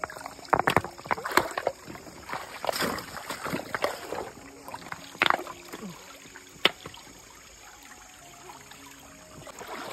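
Water splashing and sloshing as a mosquito net used as a fish trap is handled in shallow running river water, with irregular sharp splashes over the sound of flowing water.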